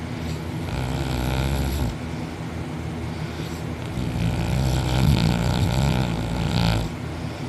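A man snoring heavily while asleep on his back with his mouth wide open: two long, buzzing snores, the second longer and louder.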